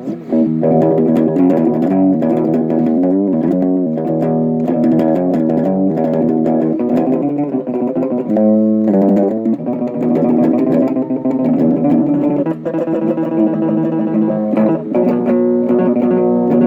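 Guitar music: plucked guitar playing a quick, continuous run of notes, with a short break about halfway through.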